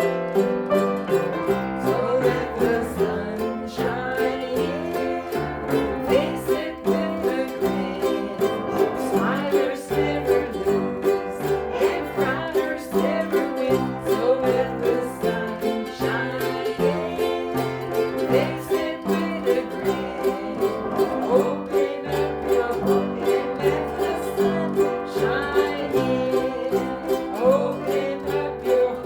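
Music: a song with plucked string instruments over a steady, note-changing bass line.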